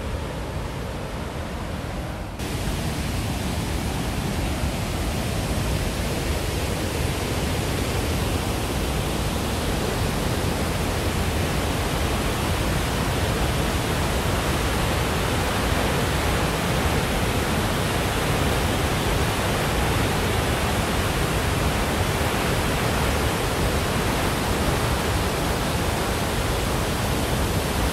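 Steady rush of Victoria Falls' water pouring down, a dense even noise across all pitches that gets louder about two seconds in.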